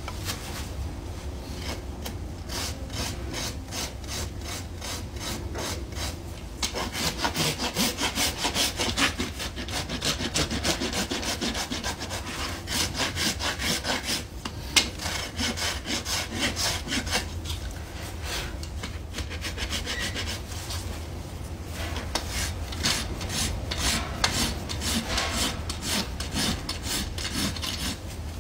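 Farrier's rasp drawn back and forth across a horse's hoof, rhythmic rasping strokes in several bouts with short pauses between them.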